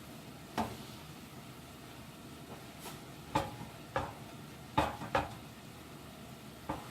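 Squid pieces sizzling faintly in a lot of their own juice on a hot grill. Utensils click and knock against the grill surface about seven times, at irregular intervals.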